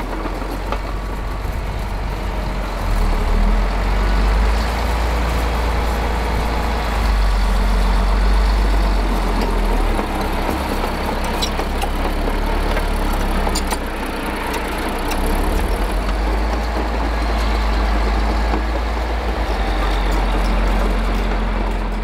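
Caterpillar D6D crawler's six-cylinder diesel engine running steadily under load as it pulls an 8-furrow mounted plough, with a deep rumble, getting louder about 3 seconds in. A few sharp clanks about halfway through.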